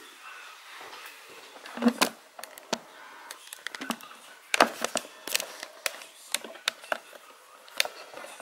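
A plastic pry tool working along the edge of a ThinkPad laptop's screen lid, giving a run of irregular sharp plastic clicks and snaps as the surround's clips let go; the two loudest snaps come about two seconds and four and a half seconds in.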